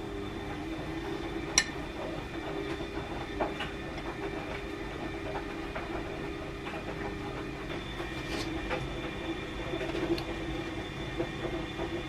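A steady low machine hum with a faint high whine over it, and a few light clicks and taps of a knife and hands on a ceramic plate and a clear plastic snack tub. The sharpest click comes about one and a half seconds in.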